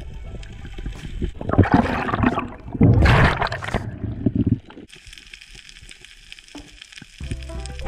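Water gurgling and rushing around an underwater camera, with two loud gushes about one and a half and three seconds in, then quieter water noise.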